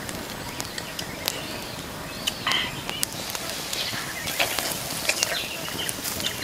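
Wood fire crackling under a whole fish roasting on a stick rack, with sharp pops scattered throughout. A brief high chirp is heard about two and a half seconds in.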